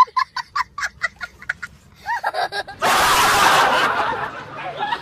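A young child laughing hard in quick, repeated bursts of about five a second. About three seconds in comes a loud, harsh burst of noise lasting about a second.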